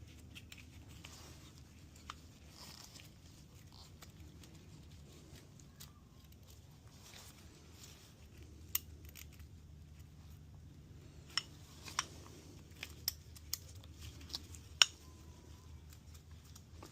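Scattered sharp clicks and light knocks of metal tools and engine parts being handled during a piston install, a few close together in the second half, over a faint steady low hum.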